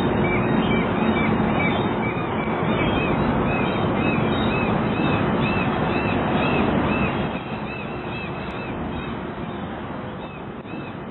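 Seagulls calling again and again, many short calls overlapping, over a steady rushing background noise.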